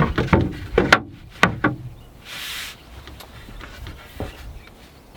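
Several sharp wooden knocks and clicks, then a brief rushing noise a little after two seconds in: the plywood bed board being handled inside a van.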